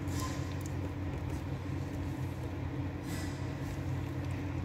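A steady low machine hum, with a few faint clicks and rustles of crimping pliers pressing insulated spade connectors onto speaker wire near the start and about three seconds in.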